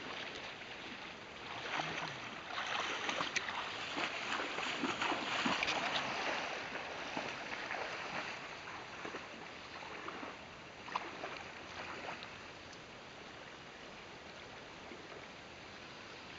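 Water splashing in a shallow, fast-running river over the steady rush of the current. The splashing is busiest in the first half and settles into the plain flow of the river, with one sharp knock about eleven seconds in.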